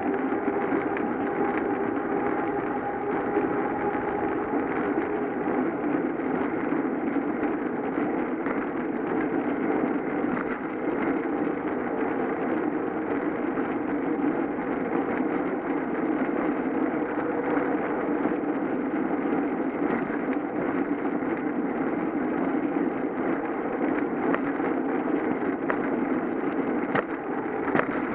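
Steady rushing road and wind noise of a bicycle ride picked up by a bike-mounted camera, with a faint hum in the first several seconds that fades away.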